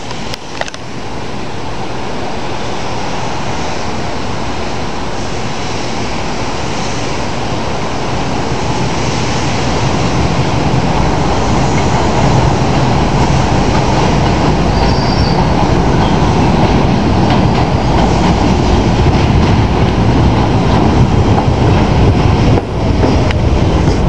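R46 subway train approaching on elevated tracks and pulling into the station, its rumble growing steadily louder as it nears. A short high wheel squeal comes about fifteen seconds in.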